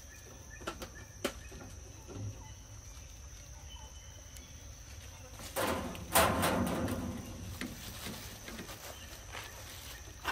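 Outdoor ambience with a steady high-pitched buzz and a few light clicks, broken about six seconds in by a loud noisy burst that fades over about a second and a half.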